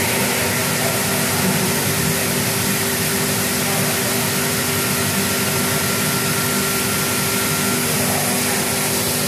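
Steady machine noise: a continuous hiss with a low, even hum under it, unchanging throughout.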